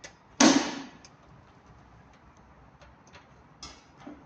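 Handling clicks at an open electrical combiner box: one loud knock about half a second in, then scattered light ticks.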